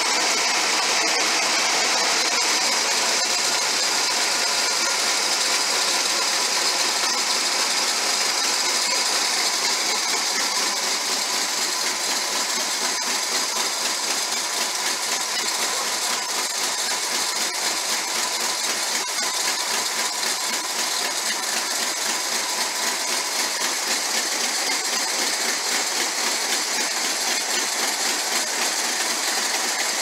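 Pontiac Firebird's carbureted engine running steadily at an even speed, running pretty good.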